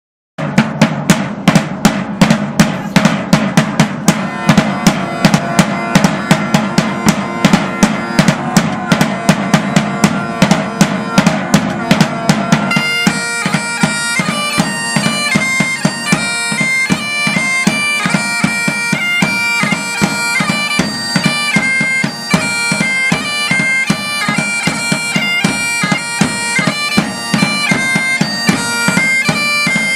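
A pipes-and-drums band playing. The drums beat alone at first, an even pattern of about three or four strokes a second with a deep bass drum. About thirteen seconds in, the bagpipes come in with a melody over the drumming.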